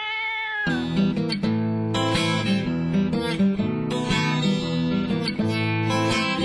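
Instrumental song intro on strummed acoustic guitar. It opens with a single held, slightly rising note, and the strumming comes in under a second in.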